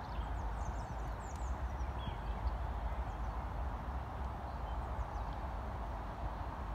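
Faint hoofbeats of a ridden horse moving on a sand arena, over a steady low rumble, with a few short high chirps in the first second or so.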